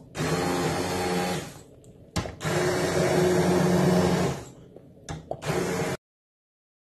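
Bosch ErgoMix immersion blender puréeing cooked vegetable soup in a pot, run in short bursts: the motor hums for about a second and a half, stops, runs again for about two seconds, then once more briefly. The sound cuts off abruptly about a second before the end.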